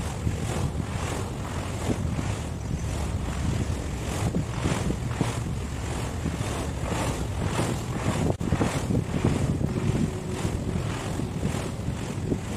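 Wind buffeting the microphone over the sea and surf, a steady low rumble under a hiss that pulses about two to three times a second.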